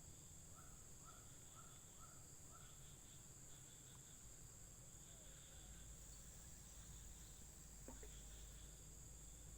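Faint, steady high-pitched chirring of insects, with a short run of small chirps in the first few seconds and a single brief click about eight seconds in.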